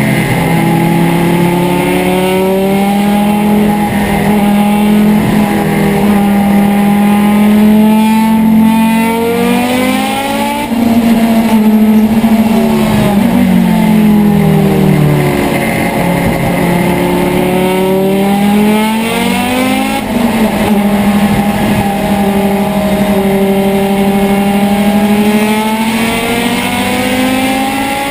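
Turbocharged 2.3-litre five-cylinder engine of a 1981 Audi Urquattro race car at full racing speed, heard from inside the cockpit, its pitch climbing, holding and dropping through the gears, with brief drops in the sound about 11 and 20 seconds in. The engine is running on low oil pressure, so its computer cuts the ignition under acceleration to protect it.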